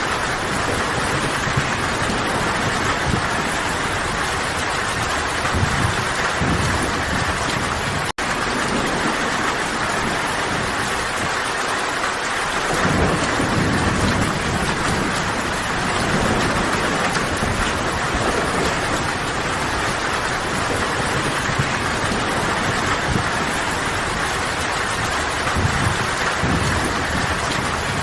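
Steady heavy rainfall, a dense even hiss, with low rumbling swells a few times underneath. The sound breaks off for an instant about eight seconds in.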